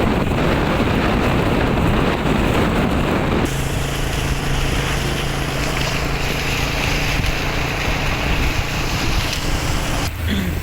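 Strong storm wind rushing and buffeting the microphone. About three and a half seconds in, the noise changes abruptly and a steady low hum sits under it.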